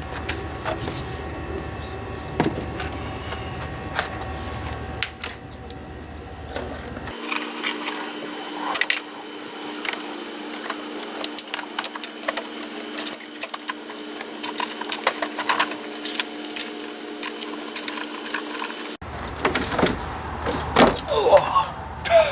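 Scattered metal clicks, taps and scrapes of hand tools and parts being handled at a car battery and its terminals. A steady low hum runs through the middle stretch.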